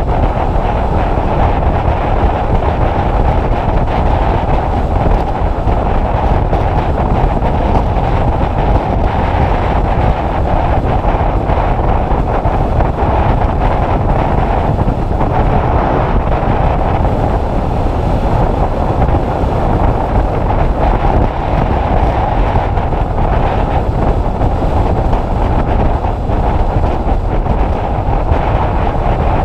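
Loud, steady wind rush buffeting the microphone of a camera on a motorcycle moving at road speed, with the bike's running sound under it.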